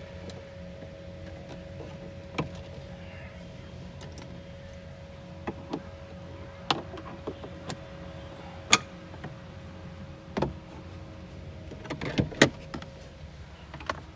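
Scattered sharp clicks and knocks from hands and a screwdriver working on a Ford Figo's plastic dashboard trim and door-pillar panel, about eight in all, over a steady hum. The loudest knocks come a little past halfway and near the end.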